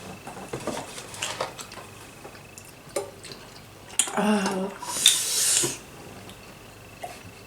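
Utensils clicking and clinking against a bowl while eating spicy noodles. Midway there is a short voiced sound, then a loud breathy hiss.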